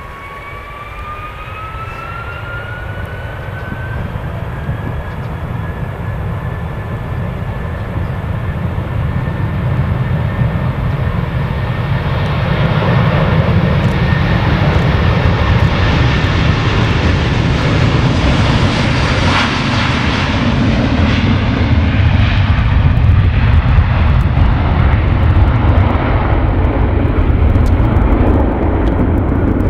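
Boeing 757-200's twin Rolls-Royce RB211-535 turbofans spooling up to takeoff thrust, a whine rising in pitch over the first few seconds. The jet noise then grows louder through the takeoff roll, with a hissing peak as the aircraft passes, leaving a deep rumble.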